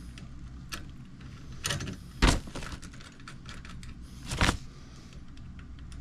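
Pliers clicking and clinking against a bronze ground clamp on a copper water pipe: a handful of sharp metallic knocks, the loudest about two seconds in and again about four and a half seconds in.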